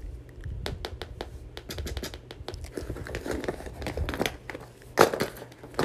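Crinkly material being handled and squeezed, a quick run of small crackles and clicks with a louder crunch about five seconds in.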